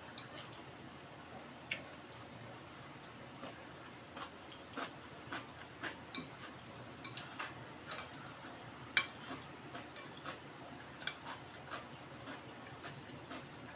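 Eating sounds during a meal of noodles: a run of short, irregular light clicks and taps, up to about two a second, with one sharper tap about nine seconds in.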